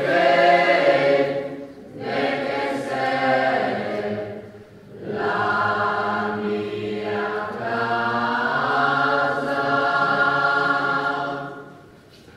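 Choir singing a hymn in several sustained phrases with short breaks between them. The last phrase ends near the end.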